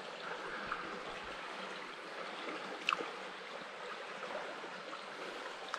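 Steady rush of a stream flowing, with one brief high chirp falling in pitch about three seconds in.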